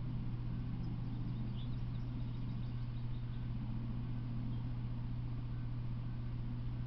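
A steady low hum under an even hiss, with a few faint bird chirps about one to three seconds in.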